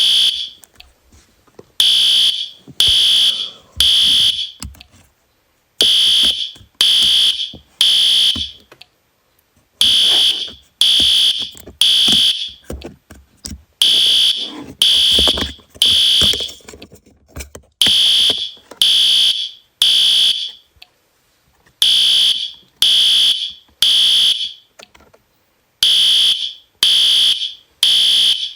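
Alarm system sounder beeping loudly in a repeating pattern of three high beeps, then a pause, about every four seconds: the temporal-three fire evacuation signal, set off as a test.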